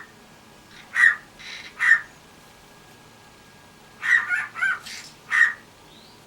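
Cockatiel giving short, sharp, bark-like calls, its imitation of a dog's bark: single calls about a second apart, then a quick run of three or four a little past the middle.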